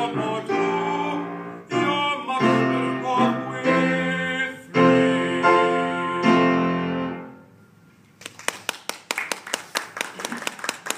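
A man's solo singing voice holds long notes over upright piano chords, ending with a final held note and chord that fade out about seven seconds in. After a short lull, a small audience claps.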